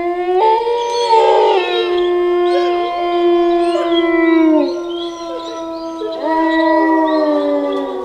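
Wolves howling together in several long, overlapping howls at different pitches, some gliding while others hold steady. A fresh howl rises in about six seconds in.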